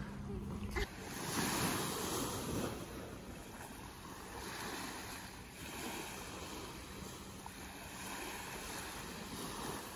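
Small waves lapping onto a sandy beach: a soft, even wash that swells and fades every couple of seconds.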